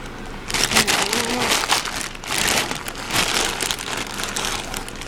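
A plastic pet-food bag crinkling and dry food pellets rattling and pattering as they are scooped with a squeezed plastic cup and poured into a small container, in two bouts.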